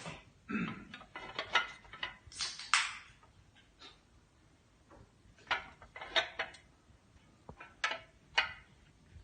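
Irregular knocks and clatter of hard objects being handled and set down, about fifteen sharp strikes spread unevenly, some in quick pairs.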